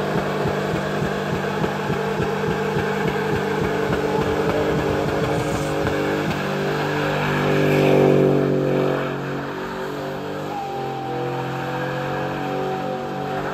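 Pickup truck engine held at high revs during a burnout, rear tyres spinning on pavement. The engine note pulses steadily at first, then the revs rise and fall, loudest about eight seconds in.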